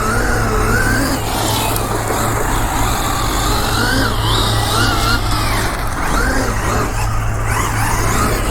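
Losi 6IX RC car's electric motor whining, its pitch rising and falling over and over with the throttle, over the hiss of tires sliding on pavement because they are getting no grip.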